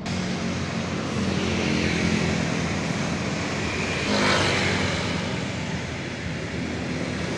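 A motor vehicle engine running under a loud rush of noise that swells to a peak about four seconds in.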